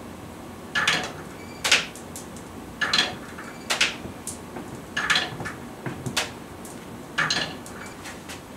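Glass marbles released one at a time by a wooden single-rail escapement, each dropping with a sharp clack onto the wooden lever and clinking into an aluminium tray. The clicks come about once a second, some in quick pairs, and stop shortly before the end.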